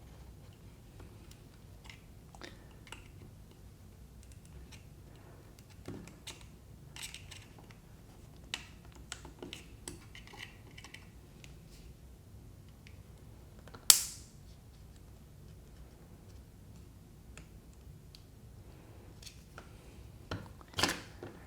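Small plastic clicks and scrapes from working the side latches of an Oral-B Triumph Professional Care toothbrush handle to free the inner unit. The clicks are scattered and quiet, with one sharp, much louder click about two-thirds of the way through and a few more near the end.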